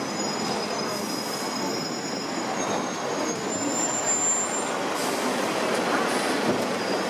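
Hong Kong double-decker electric tram running along its street track, heard from the upper deck: a steady running noise with the steel wheels squealing against the rails in thin high tones that come and go.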